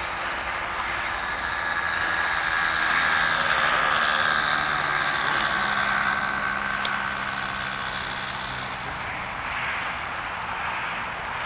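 Engine of a radio-controlled Boomerang trainer model airplane running as it comes in to land. It grows louder as the plane passes close, its pitch falls slightly, and it fades as the plane touches down and rolls along the grass.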